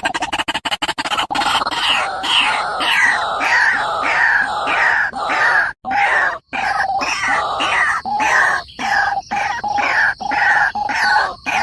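White-breasted waterhen calling: a fast stuttering run of pulses for about the first second, then harsh repeated croaks, about two a second, each dropping in pitch.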